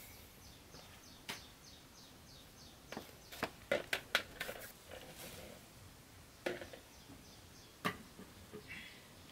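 Light clicks and knocks of small containers being picked up and set down, several in quick succession three to four seconds in and a few more later. A fast run of faint high chirps, about four a second, fades out within the first three seconds.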